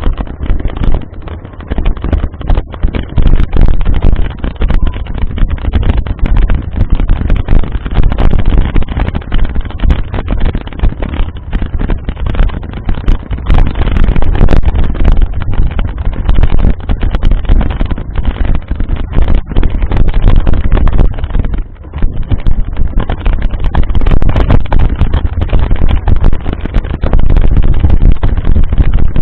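Wind buffeting the camera's microphone: a loud, heavy rumble that rises and falls rapidly, with a brief drop about 22 seconds in.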